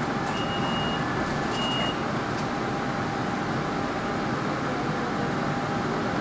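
Door warning beeps of an MBTA Green Line light-rail car at a stop: two short high beeps about a second apart in the first two seconds, with a few sharp knocks. Under them runs the steady hum and rumble of the car's interior.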